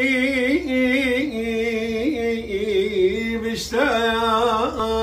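A man singing an Assyrian song solo, holding long ornamented notes that waver and bend and step gradually lower, with a short breath break about three and a half seconds in.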